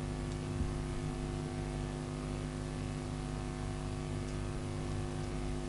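Steady electrical mains hum with a faint hiss, low in level.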